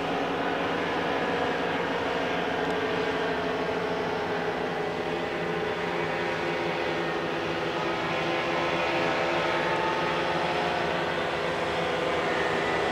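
Paramotor engines of two powered paragliders droning steadily overhead, their pitch drifting slightly as they fly past.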